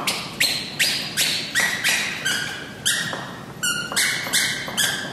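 Squeaker inside a plush dog toy squeaking over and over as a terrier bites down on it, about two squeaks a second, each starting sharply and fading quickly.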